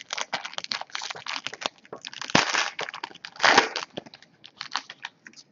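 A trading-card pack's wrapper is torn open and crinkled in the hands: a run of crackles and rips, with the loudest tears about two and a half and three and a half seconds in.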